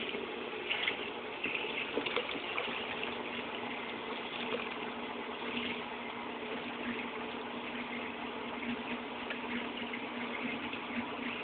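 Class 6 kg washing machine draining at the end of the rinse: water gushes and splashes out steadily over a continuous low hum.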